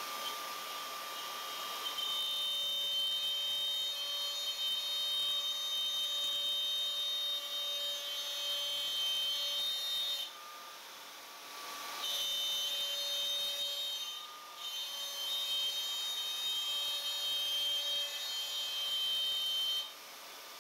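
Festool plunge router running under load as it cuts a circle in a padauk board, a steady high whine over the hum of a dust extractor. The whine drops out for about two seconds just after the middle, dips briefly a couple of seconds later, and cuts off near the end.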